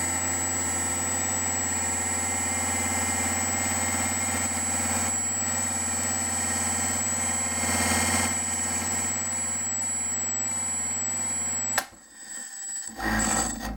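3D-printed generator spinning at high speed, a steady mechanical hum with a high whine on top. Near the end a sharp bang as the rotor breaks apart and strikes the wall of its plastic coil housing, followed by about two seconds of clattering and scraping as it comes to a stop.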